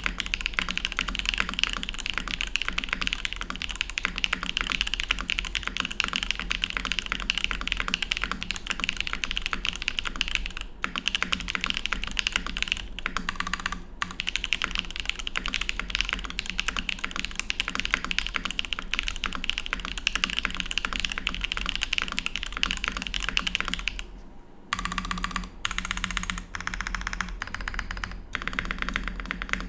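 Fast continuous typing on a Neo80 mechanical keyboard with Gateron Baby Kangaroo tactile switches, GMK doubleshot keycaps and an aluminium plate with plate foam: a dense clatter of keystrokes, likened to shaking an aerosol can. About 24 seconds in the typing stops briefly, then comes back in shorter, sparser runs.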